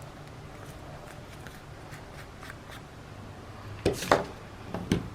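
Paper being handled and rubbed on a craft table: faint scratching, then two sharp, louder rustles or knocks about four and five seconds in.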